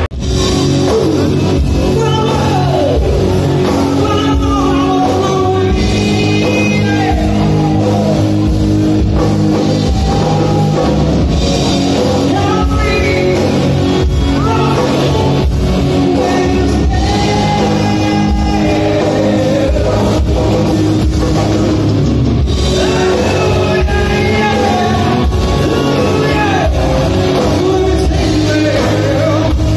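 Loud live rock band: a singer over electric guitar, bass guitar and a drum kit, played through the venue's PA.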